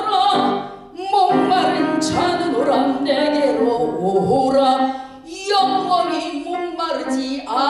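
A woman singing a Korean sacred song into a microphone, holding long notes, with grand piano accompaniment. The sound dips briefly twice, about a second in and about five seconds in.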